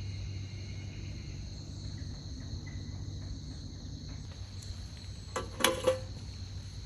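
Crickets or other insects trilling steadily over a low hum, with two sharp knocks late on.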